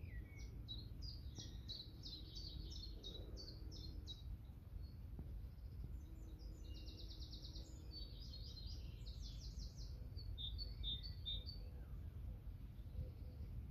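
Songbird singing in phrases of quick, high repeated notes, with a fast even trill partway through, over a steady low rumble.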